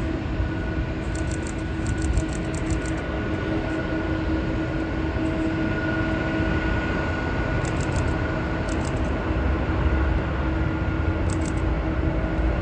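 Jet airliner engines running steadily: a continuous rumble with a constant hum, with short clusters of faint high ticks several times.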